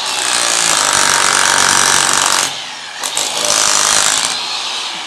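Electric demolition hammer with a chisel bit hammering tiles and plaster off a bathroom wall, in two runs with a short break about two and a half seconds in, stopping near the end.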